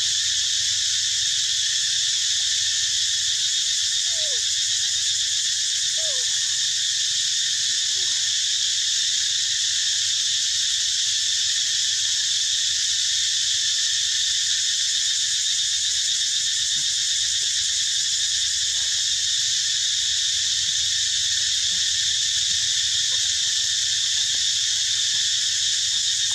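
Steady, unbroken high-pitched insect chorus, with a few faint short falling calls in the first eight seconds or so.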